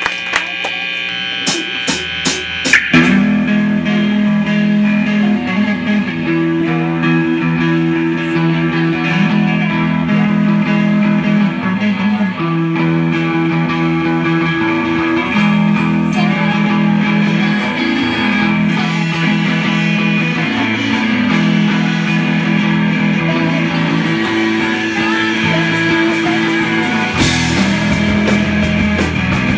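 Live punk rock band playing with electric guitar, bass guitar and drum kit. The full band comes in about three seconds in after a few sparse notes and sharp clicks, then plays on steadily.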